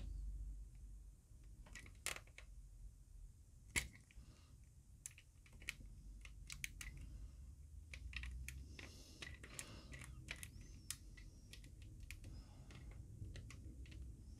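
Faint, irregular clicks and light scraping of a small drill bit in a precision-screwdriver handle, twisted by hand to bore the broken plastic stub out of a toy Dalek's sucker-arm socket; two sharper clicks about 2 and 4 seconds in.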